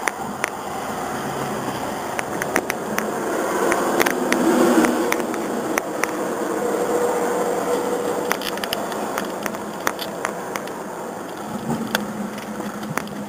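Car engine and road noise at low speed, heard inside a car cabin through a feature phone's tinny microphone, swelling about four seconds in as the cars move off, with scattered sharp clicks.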